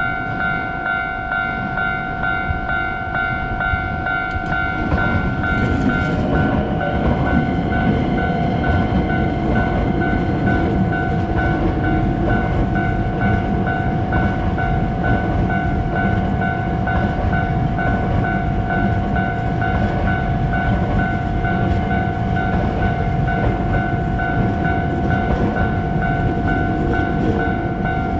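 Level-crossing warning bell ringing in a steady electronic ding-ding, about two strikes a second, while a train passes through the crossing; the train's rumbling running noise rises about four seconds in and goes on under the bell.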